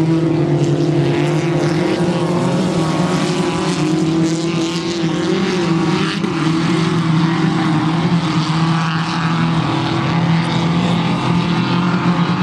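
Engines of several small hatchback race cars running together, a steady sustained engine sound that hardly rises or falls in pitch.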